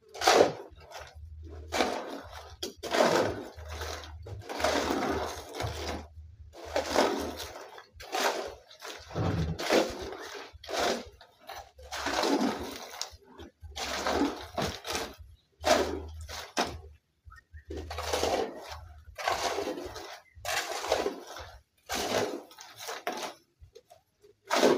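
Steel shovel scraping and crunching into a pile of gravel and cement in repeated strokes, about one every second and a half, as concrete is mixed by hand.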